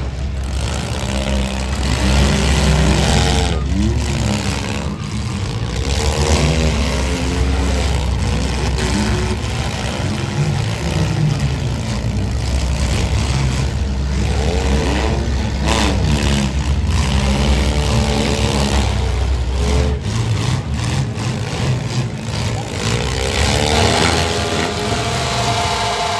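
Engines of several compact demolition derby cars idling and revving, their pitch swinging up and down again and again over a steady low rumble, with occasional sharp knocks.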